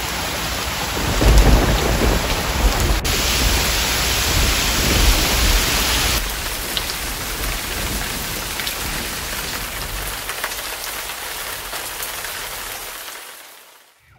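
Heavy tropical rain pouring down on leaves, stones and pond water, a dense steady hiss. A deep low rumble runs under it for the first several seconds, and the rain fades out near the end.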